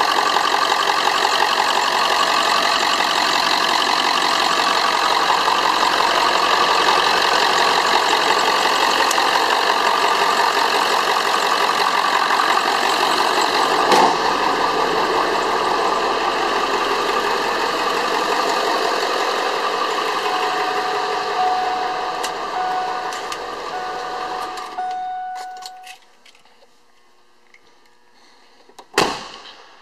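A 1997 Ford F250's 7.3 L Power Stroke turbo-diesel V8 idles steadily, with a chime beeping in short repeated tones from about 20 seconds in. About 25 seconds in the engine shuts off and all goes quiet, apart from a single thump near the end.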